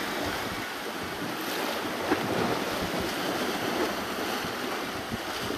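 Small waves surging and washing over and around a rock ledge at the water's edge, a steady rushing wash.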